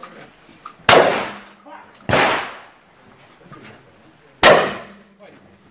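Shotgun fired three times, the shots about a second apart and then about two and a half seconds apart, each one ringing out briefly.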